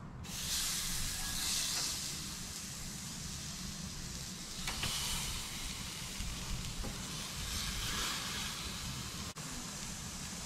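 Marinated goat pieces sizzling on the grate of a hot charcoal grill as they are laid on one after another. The hiss flares up a little about half a second in, again just before five seconds and again about eight seconds in, as more pieces go down.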